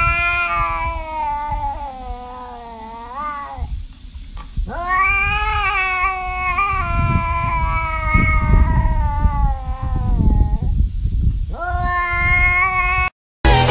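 Tabby cat yowling in three long drawn-out calls: the first bends down in pitch at its end, the second is the longest, and the third is short. A low rumbling noise runs underneath.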